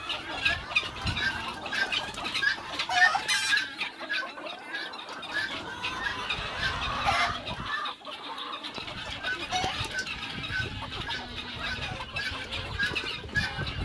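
A flock of chickens clucking continuously, many birds calling over one another in short, overlapping clucks.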